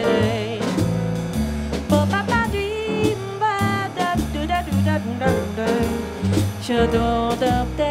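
Small jazz group playing: a woman sings a wordless melody over plucked double bass notes and a drum kit with cymbals.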